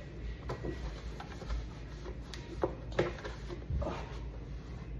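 Cloth wiping and rubbing inside a refrigerator during cleaning, with a few light knocks and clicks from handling.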